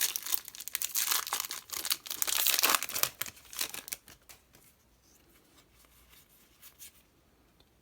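Foil trading-card booster pack wrapper crinkling and tearing in quick rustling strokes for about four seconds, then it goes almost quiet.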